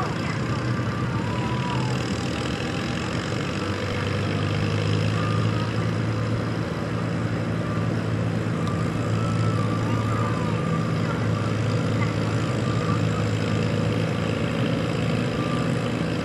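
Farm tractor engine idling steadily, with a deeper, stronger engine hum coming in about four seconds in.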